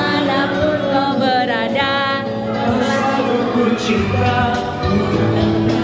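Live singing into microphones over electronic keyboard accompaniment, amplified through PA speakers, with long held notes sung with vibrato.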